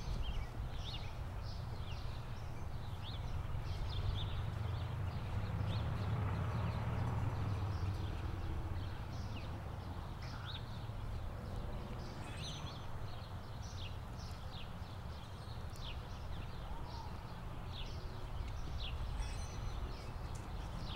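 Outdoor ambience: small birds chirping repeatedly in short, quick falling notes over a steady low rumble.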